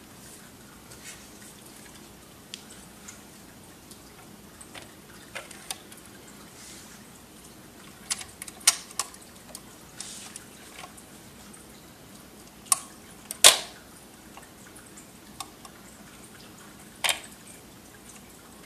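Dual 1019 automatic record changer cycling, with a series of sharp mechanical clicks and clacks from the changer and spindle as a record drops onto the platter. The loudest clack comes about 13 seconds in, over a faint steady hum.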